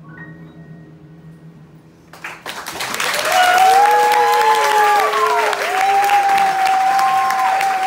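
The band's last held notes fade out, then the audience breaks into loud applause about two seconds in, with long shouted cheers over the clapping at the end of the song.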